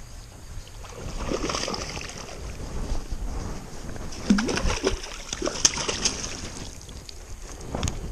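Splashing and knocks at the waterline as a hooked largemouth bass is fought close beside a kayak: an irregular run of splashes and sharp clicks, busiest in the middle.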